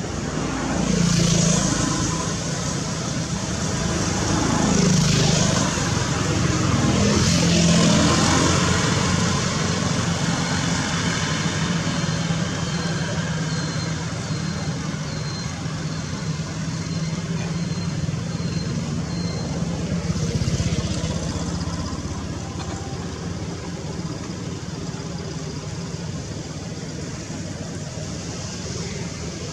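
Road traffic: several vehicles pass, each one swelling up and fading away, over a constant background of traffic noise. A steady engine hum runs through the middle stretch.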